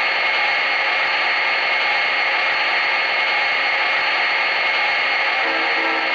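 O scale model diesel locomotive's onboard sound system playing a steady idling engine sound, a hissy drone through its small speaker while the train stands still. A brief faint pitched sound comes in about five and a half seconds in.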